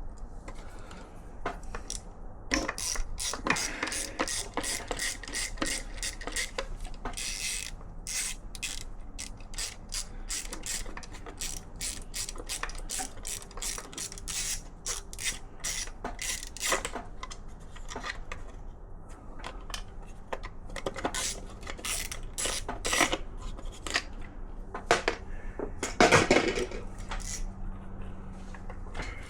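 Socket ratchet wrench clicking in quick runs as it is swung back and forth on engine bolts, with pauses between the runs and a louder metallic clatter near the end.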